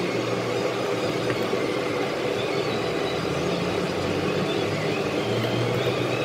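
Steady background noise with a low hum; no single event stands out.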